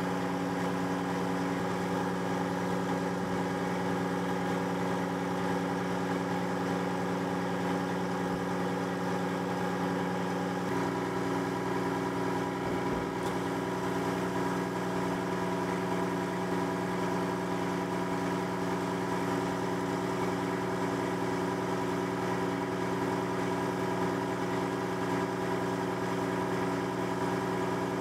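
Truck engine running steadily while it drives the hydraulics that lift the tipping trailer box on its telescopic cylinder. The tone shifts slightly about eleven seconds in.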